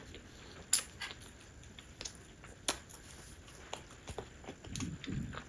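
Close-miked eating sounds: quiet chewing with a few scattered sharp wet mouth clicks, and a brief soft low rustle near the end.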